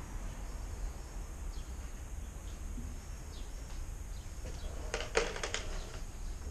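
Steady outdoor background noise with a few faint, short bird chirps, and a brief burst of clicks and knocks about five seconds in.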